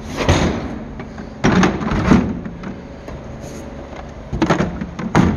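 Hard plastic tool cases being set and shoved into a steel tool-cabinet drawer, knocking and scraping against each other and the drawer in three bursts: at the start, about a second and a half in, and again from about four seconds in.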